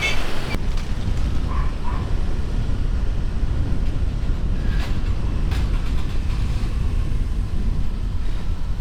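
Motorbike traffic noise on a busy city road: a steady low rumble of engines and road noise.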